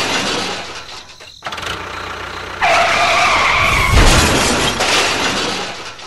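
Dubbed vehicle-crash sound effects: noisy crashing and scraping, a high screech lasting about a second from around two and a half seconds in, then a heavy crash about four seconds in.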